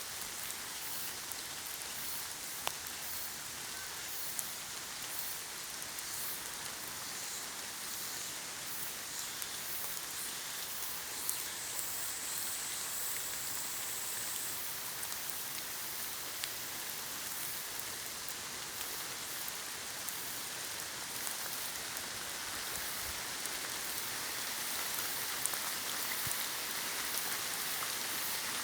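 Steady rain falling in a forest: an even hiss with scattered sharper drops ticking throughout, and a faint high thin tone for a few seconds near the middle.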